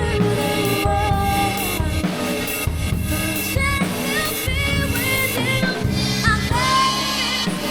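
Drum kit with a Steely B10 cymbal set played along to a recorded pop ballad: kick, snare and cymbals over a singing voice and backing music.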